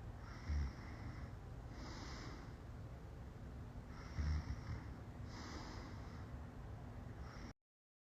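A person passed out drunk, snoring with slow, heavy breaths every second or two, and two louder deep bursts about half a second in and about four seconds in. The sound cuts off suddenly near the end.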